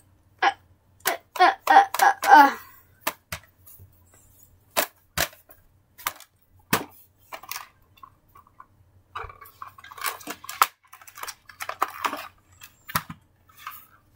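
Handling noise from a small plastic portable DVD player being picked up and turned over: scattered sharp clicks and knocks, with a louder cluster of knocks and scrapes about two seconds in and more clattering near the end.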